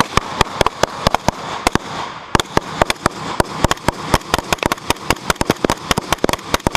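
Rapid, irregular rifle fire, many shots a second overlapping at varying loudness, as in a live-fire drill with several rifles shooting at once.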